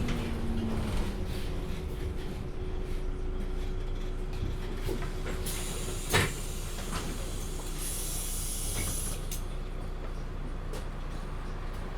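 Interior of a MAN Lion's City articulated city bus: the diesel drivetrain runs with a low drone. A sharp clack comes about six seconds in, and two short hisses of compressed air come from the bus's pneumatics, one around the clack and one a couple of seconds later.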